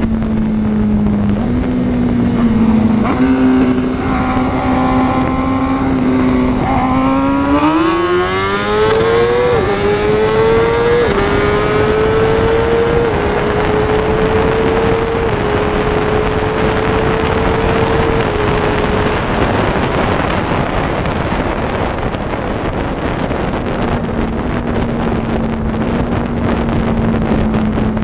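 Motorcycle engine cruising at steady speed under heavy wind noise on the microphone. About eight seconds in it revs hard in a rising whine, then shifts up through several gears, the pitch dropping a little at each shift. It fades under the wind and settles back to a steady cruise near the end.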